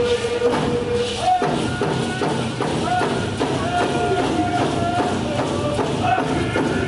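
A group of voices singing a Northwest Coast Indigenous warrior song together over steady hand-drum beats. The notes are long and held, and the melody steps up in pitch about a second in.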